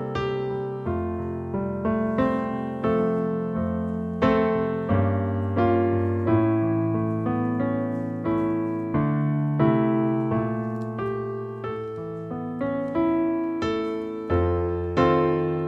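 Piano playing a slow, calm piece: notes and chords struck about twice a second, each ringing on as it fades.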